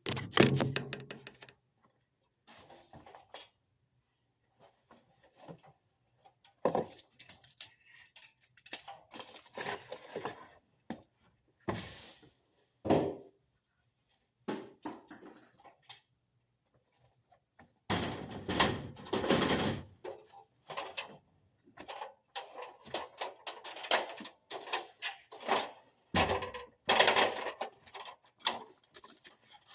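Irregular clicks, knocks and rustling of hands handling parts and wiring while swapping a furnace control board, with brief quiet gaps between bursts of handling.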